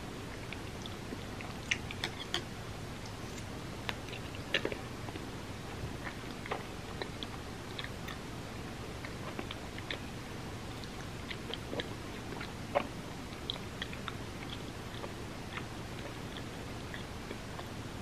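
Close-miked chewing of mochi ice cream coated in red bean porridge, with many small, irregular mouth clicks over a steady low hum; two louder clicks stand out, one about a quarter of the way in and one about two-thirds through.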